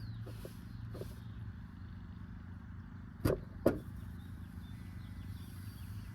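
Steady low hum of running HVAC machinery, with two sharp knocks about half a second apart a little past midway.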